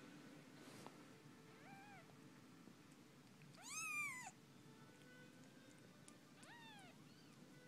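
Four-day-old kittens mewing while their mother licks them clean: three short, high-pitched cries that rise and fall in pitch. A faint one comes about two seconds in, the loudest at about four seconds, and another near the end.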